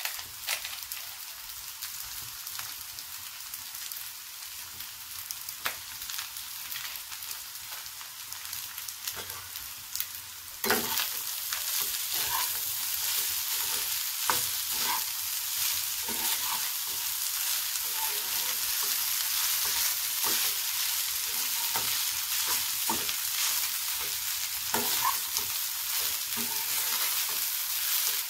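Egg fried rice sizzling in a frying pan. About ten seconds in, a spatula starts stirring and tossing the rice: the sizzle gets louder, with frequent scrapes and taps of the spatula against the pan.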